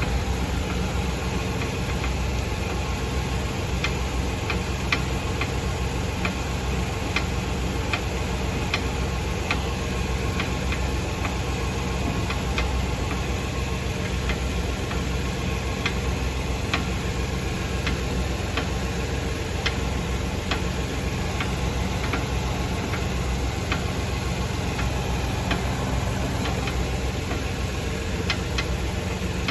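Suspension of a 2018 Fiat Uno Drive clicking and knocking irregularly, several sharp clicks every few seconds, over a steady low rumble from the car.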